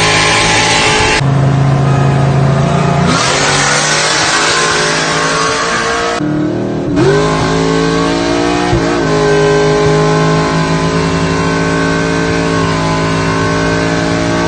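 Chevy Tahoe's 5.3-litre V8 running, steady, with its pitch dipping and rising briefly a few times.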